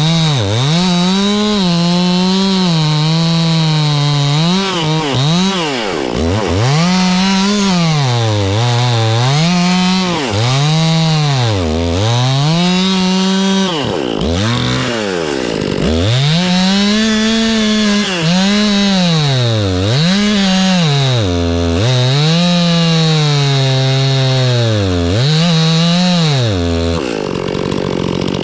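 Chainsaw cutting a face notch into a maple trunk, its engine pitch repeatedly sagging under load and revving back up, dropping to idle near the end. The chain has gone dull, so the saw bogs rather than cutting cleanly.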